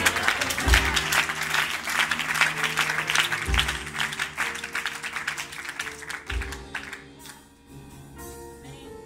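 A congregation applauding over sustained instrumental chords, with a bass note that changes about every three seconds. The applause fades out about seven seconds in, leaving the chords.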